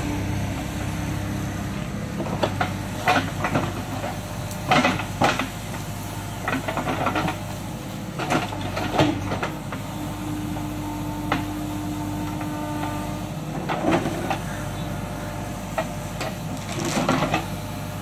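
Backhoe loader's diesel engine running steadily while its bucket scrapes and clanks over the soil, with irregular knocks and rattles throughout and a steady whine for a few seconds past the middle.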